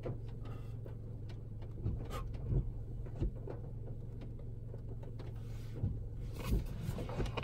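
Steady low hum inside a car's cabin, with a few soft knocks and taps scattered through it.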